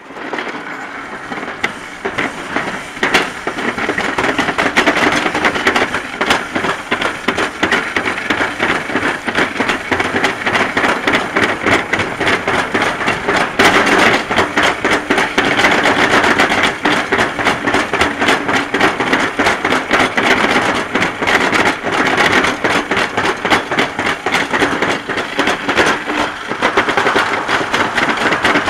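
Summer toboggan sled running fast down a stainless steel trough track: a continuous clattering rumble of the sled on the metal, full of fine rattles. It builds up over the first few seconds as the sled gathers speed.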